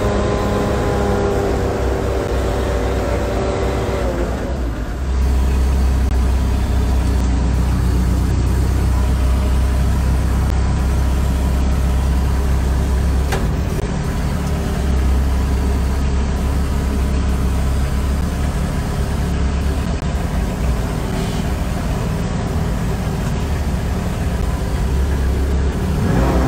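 Sherp Pro amphibious ATV's engine running steadily under way, heard from inside the cab as a deep, continuous rumble that grows louder about five seconds in. A whining tone sits over it for the first few seconds, falling slightly as it fades out, and comes back right at the end.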